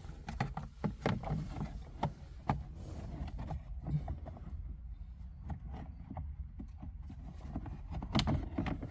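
Scattered clicks and knocks of plastic steering-column parts being handled and snapped into place, the loudest about a second in, at two and two and a half seconds, and near the end, over a low steady hum.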